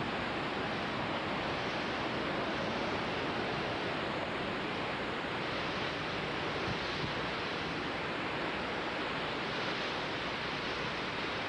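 Hurricane Ivan's winds, about 75 mph, blowing as a steady, even roar of rushing air.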